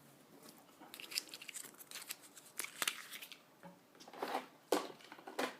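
Hands handling small parts and packaging: a string of light clicks and crinkly, tearing rustles, with a few sharper crackles in the second half.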